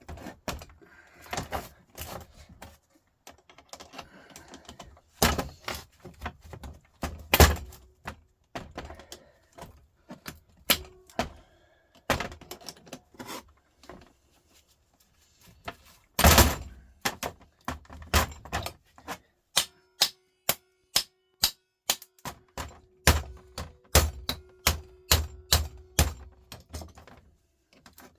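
Metal being struck with a hammer while a truck starter motor is taken apart: irregular knocks and clanks at first, then a steady run of blows about two or three a second over the last third, with a faint metallic ring.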